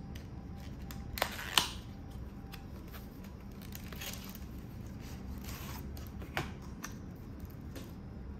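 A phone-case box of thin card and plastic being handled and opened: two sharp clicks about a second and a half in, then rustling and scraping as the flap opens and the case in its plastic tray slides out, with another click a little past the middle.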